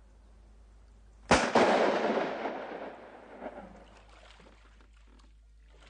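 A single handgun shot about a second in. Its echo rolls off the gorge's rock walls and dies away over about two seconds.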